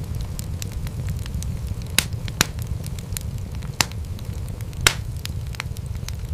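Wood fire crackling in a fireplace: a steady low rumble of flames with scattered small crackles and four sharper pops, the loudest about five seconds in.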